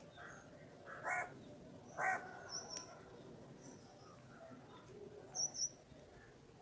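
Birds calling faintly: two short harsh calls about a second apart, then a few high, thin chirps, with a quick pair of them near the end.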